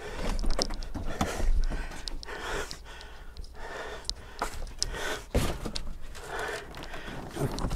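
Scattered knocks, clicks and rustling handling noise of someone moving about and shifting things, busiest in the first couple of seconds.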